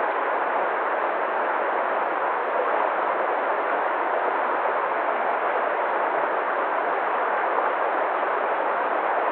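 Waterfall: falling water rushing in a steady, unchanging roar.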